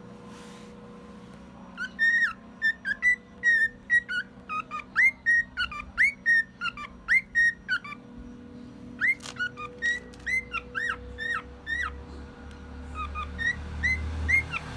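Male cockatiel whistling a quick run of short chirped notes, about two or three a second, pausing briefly and then starting again.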